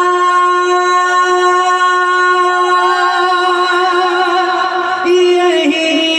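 A man singing a naat unaccompanied, holding one long note with small ornamental turns, which dips briefly about five seconds in before settling again. The voice is amplified through a handheld microphone.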